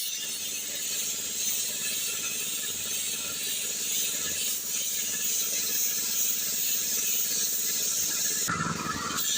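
Steady hiss of a compressed-air paint spray gun spraying, which breaks off briefly near the end.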